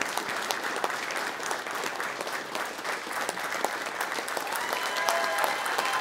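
Wedding guests applauding after the couple's first kiss, a dense steady clapping with a few voices cheering and whooping near the end.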